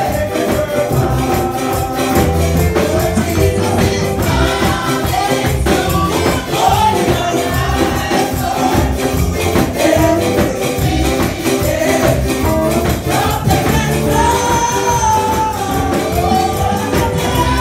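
Women's gospel choir singing with lead voices on microphones through a church PA, over steady chordal and bass accompaniment with a tambourine keeping a regular beat.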